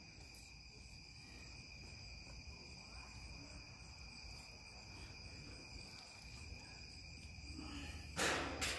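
Faint, steady chorus of crickets, a continuous high trill. A short, louder sound breaks in near the end.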